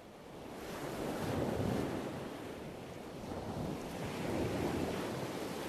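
Ocean surf: waves washing in, the noise rising over the first second and then swelling and easing twice.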